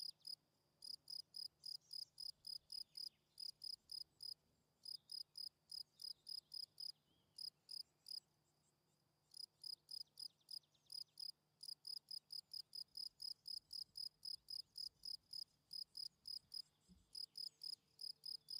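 A cricket chirping steadily in short, high-pitched chirps, about four a second, pausing for about a second near the middle.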